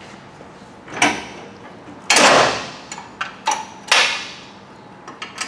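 A series of metal clunks and knocks from parts of a stand-on mower being handled. The loudest is a longer, rattling clunk about two seconds in.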